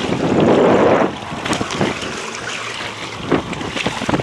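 Wind blowing hard on the microphone for about the first second, then easing, over sea water washing against a small boat's hull, with a few short knocks.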